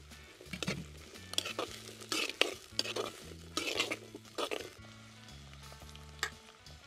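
Steel slotted spatula scraping and stirring shallots, garlic and ginger as they fry in oil in a clay pot, with sizzling. The scrapes come in a run of strokes through the first four and a half seconds, then ease off to a single click near the end.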